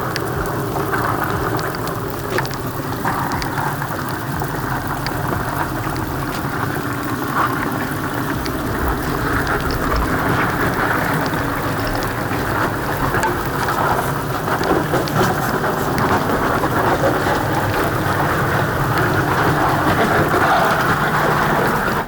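Off-road rig driving through deep water and mud: steady engine rumble under a continuous rushing, splashing noise.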